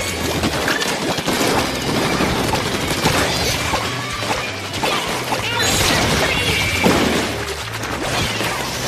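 Hard shells of asari clams clattering and knocking against each other in a constant, irregular rattle, over background music.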